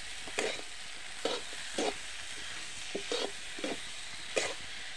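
Potato and tomato pieces sizzling in hot oil in a kadhai while a metal spatula scrapes and turns them, stirring in salt. A steady sizzle with about seven scraping strokes, one every half second or so.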